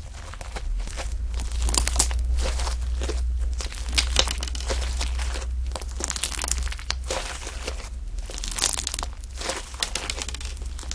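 Slime being squeezed and pressed by hand, giving a dense, irregular crackling and clicking, over a steady low hum.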